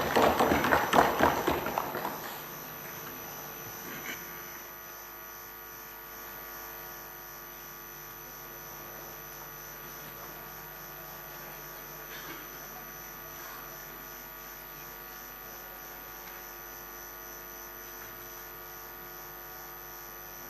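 Applause in the assembly hall that fades out about two seconds in, then a steady electrical mains hum with several constant tones.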